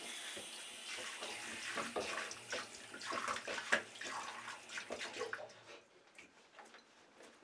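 Bathroom sink tap running, with hands splashing quickly and unevenly under the stream. The water stops about five and a half seconds in, leaving only a few faint small knocks.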